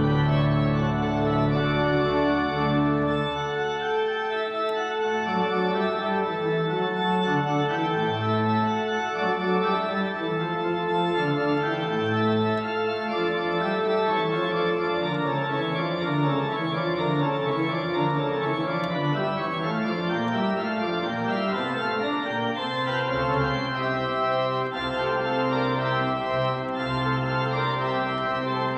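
Organ music: a slow piece of held chords, with deep bass notes at the start that drop away after a few seconds and come back near the end.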